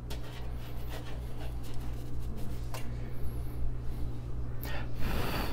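Faint crumbly scratching and small clicks as fingers break apart a snickerdoodle fresh from the oven, over a steady low hum. A short breathy rush comes near the end.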